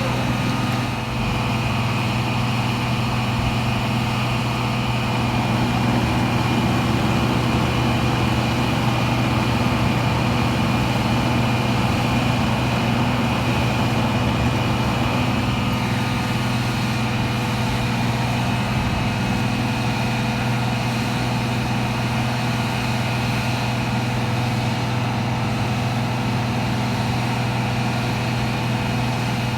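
The diesel engine of a 2004 Wirtgen W1000F cold planer idling steadily, with an even low drone.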